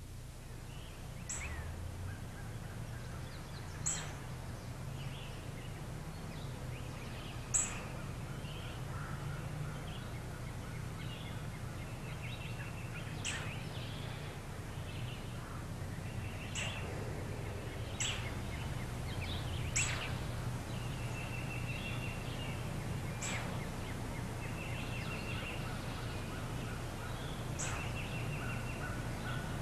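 Wild birds calling in woodland: short, sharp, high chip notes every few seconds and thin trilled phrases, over a steady low hum.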